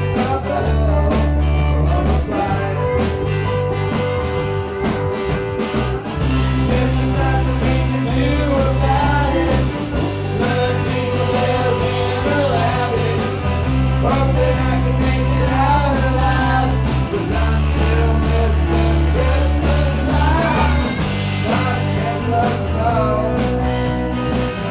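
A rock band playing a song: a sung vocal over electric guitar, bass and drums at a steady beat.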